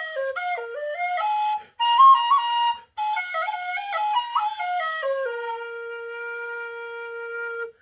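Carbony carbon-fibre B-flat tin whistle playing a slip jig melody, with two short gaps for breath, then settling on a long held low note that stops just before the end.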